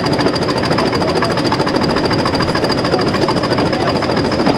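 English Electric Class 20 diesel locomotive working along the line: its eight-cylinder engine running under load with a fast, even beat and a steady high turbocharger whistle over it.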